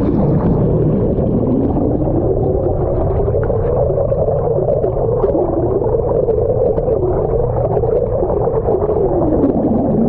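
Bratt jet boat's engine and jet drive heard underwater: a muffled rumble with a wavering whine that climbs in the first couple of seconds, wobbles up and down, and dips near the end.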